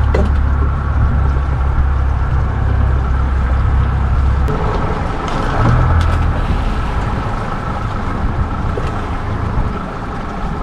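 Boat's outboard motor running, its low note shifting about four and a half seconds in and again around six seconds.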